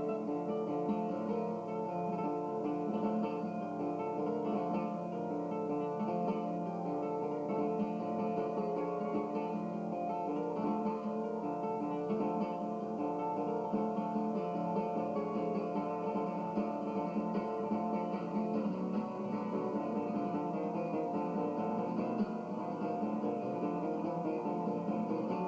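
Acoustic guitar played live, a steady unbroken stream of plucked notes ringing together.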